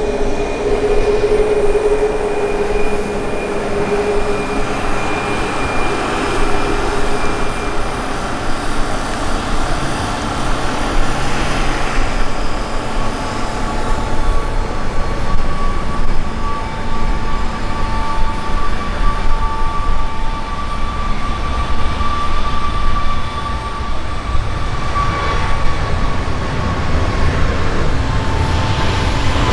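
Steady airport apron machinery noise: a continuous low rumble with several held whining tones that shift and swap over slowly, of the kind made by aircraft auxiliary power units, ground power units and jet engines around a parked airliner.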